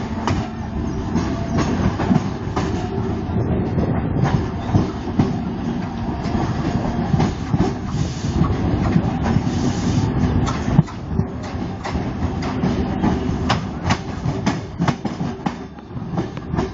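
Mumbai suburban local electric train running along the track, heard from its open doorway: a steady rumble with irregular sharp clacks of the wheels over the rails.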